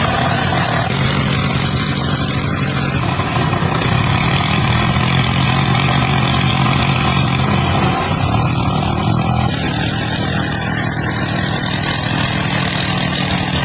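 Restored diesel engine of an old water pump set running steadily; its note shifts slightly about eight seconds in.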